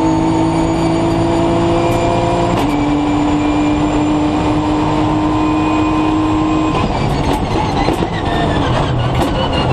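Nissan GT-R Nismo GT3's twin-turbo V6 heard from inside the cockpit, pulling hard with the pitch climbing slowly, with one upshift about two and a half seconds in. About seven seconds in the steady pitch breaks off into a run of downshifts with sharp cracks as the car brakes.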